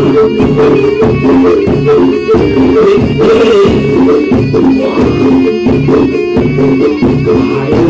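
Live Javanese barongan accompaniment music, loud and continuous: a dense ensemble of sustained pitched instruments with frequent drum and struck-percussion strokes.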